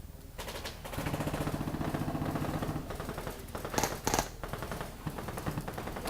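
Airsoft electric gun firing a full-auto burst of a little under two seconds, its gearbox and motor whirring under a rapid rattle of shots. About a second later come two sharp cracks half a second apart, then scattered lighter snaps.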